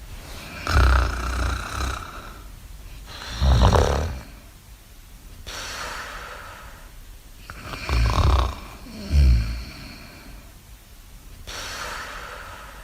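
Snoring sound effect: loud, low, rasping snores, the second pair close together, with softer breathy exhales in between.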